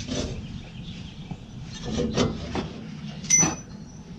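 Rubber fan belt being worked up over a Massey Ferguson 35's fan and through its sheet-metal radiator shroud: scattered rubbing and light knocks, with a sharper metallic clink about three seconds in.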